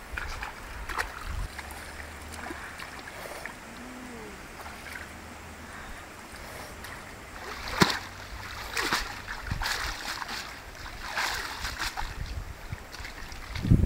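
Shallow stream water sloshing and splashing as a woven bamboo basket of grubs is dipped, stirred by hand and swished to rinse them, with a few louder splashes in the second half.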